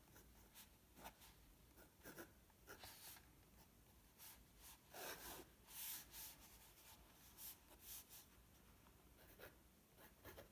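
Faint scratching of a pen drawing on paper, in short, irregular strokes.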